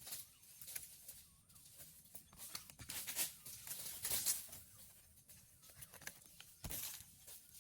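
Goats feeding: irregular rustling, tearing and crunching of vegetation, with a few louder crackles near the middle.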